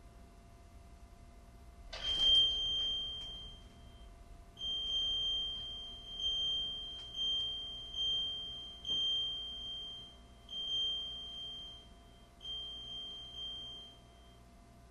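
High-pitched piezo earthquake alarm (Quake Alarm) going off, set off by the shaking of a small earthquake. It starts with a sharp onset about two seconds in, then sounds in about a dozen uneven beeping bursts of different lengths.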